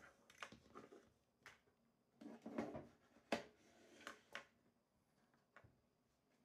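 Near silence: quiet room tone with a few faint clicks and a brief soft rustle a little over two seconds in.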